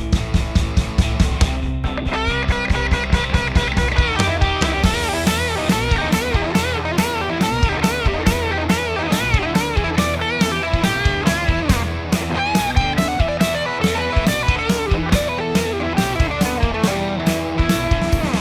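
Electric guitar music played through Fender 15-watt tube combo amps: a lead line with wide vibrato over rhythm guitar and a steady drum beat.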